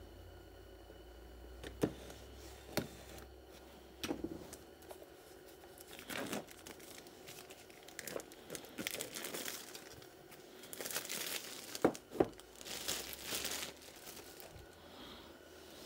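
Clear plastic shrink wrap being slit with a utility knife and peeled off a cardboard box, crinkling and tearing in short bursts, with a few sharp clicks along the way.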